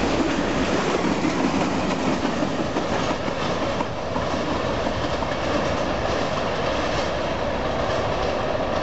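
Freight train cars rolling past on the rails: a steady, loud noise of steel wheels running on the track.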